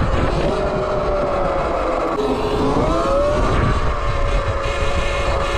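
E-Ride Pro SS electric dirt bike's motor and drivetrain whining while riding. The whine dips in pitch about two seconds in as the bike eases off, then rises again as it speeds back up, over a steady rush of wind and tyre noise.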